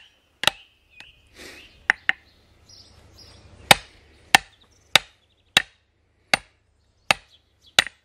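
Hammer striking a steel splitting wedge driven into an upright log, about ten sharp metal-on-metal blows at a steady pace, with a short pause after the first few. The wedge is sinking deeper into the wood to split it.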